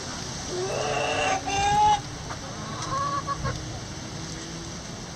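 Chickens calling: one bird gives a long call about half a second in that rises in pitch and is loudest near its end, and a shorter call follows about three seconds in, over a steady hiss of rain.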